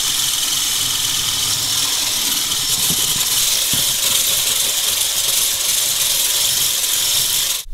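Hand-held stick blender whipping egg whites in a stainless steel bowl, its motor running at a steady high whir, then switched off near the end.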